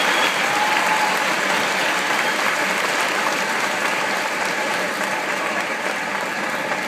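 Audience applauding steadily, the clapping slowly dying down.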